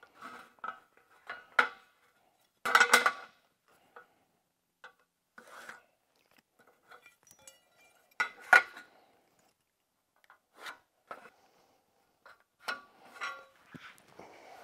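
A metal speed square clinking and tapping against a length of sheet-metal window trim as it is set against the piece and marked. The knocks are scattered and short, the loudest about three seconds in and again about eight and a half seconds in, with a small flurry near the end.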